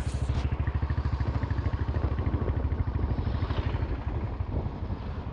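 Royal Enfield Bullet single-cylinder motorcycle engine and exhaust running under way, a rapid, even thump that eases a little about four seconds in.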